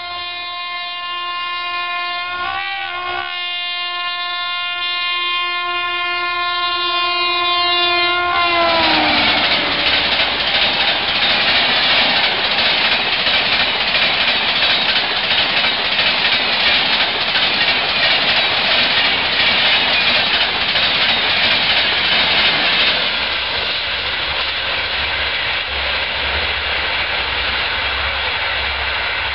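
An Indian Railways electric locomotive's horn sounds one long blast, broken briefly about three seconds in, and drops in pitch about eight seconds in as the locomotive passes at high speed. Its LHB coaches then rush past with loud, steady wheel-on-rail noise and clatter, which falls away somewhat a few seconds before the end.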